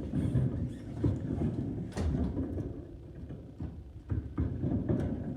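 Handling noise from cage accessories being moved around: low rustling and scraping with a few sharp knocks, one about two seconds in and another near the end.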